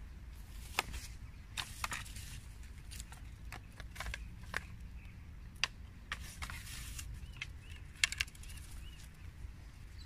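Irregular light clicks and rustles from an angler handling fishing tackle and a landing net on a grassy riverbank, over a low rumble. A quick run of ticks about eight seconds in, and a few short bird chirps near the end.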